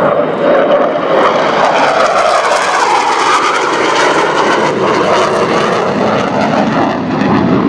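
F/A-18 Hornet jet flying past with afterburners lit: a loud, steady jet noise whose pitch climbs toward the middle and then sinks as it goes by.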